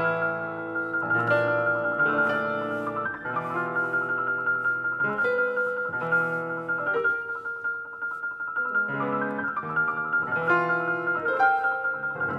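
A grand piano being played, with new chords and clusters struck every second or so over one high note that keeps sounding throughout.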